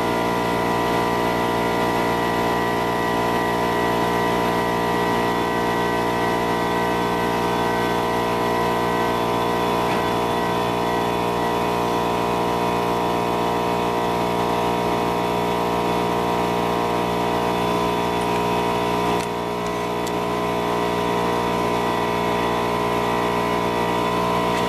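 Engine running steadily at a constant pitch, with a slight drop about 19 seconds in.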